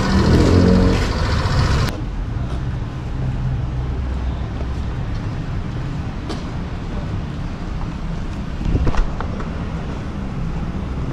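Street traffic noise with vehicle engines running. It is louder for the first two seconds, then drops abruptly to a steady low rumble, with a brief louder knock a little before the end.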